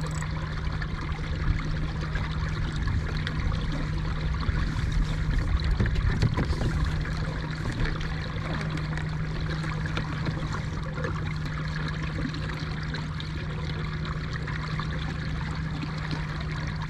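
Water trickling and lapping along the hull of a kayak under way, over a steady low hum from its electric trolling motor.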